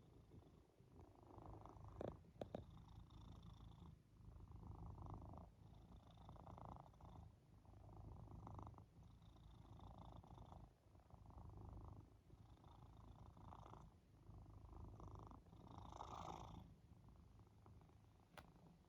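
Domestic cat purring softly, close up, the purr swelling and fading with each breath about every one and a half seconds. A couple of faint clicks come about two seconds in.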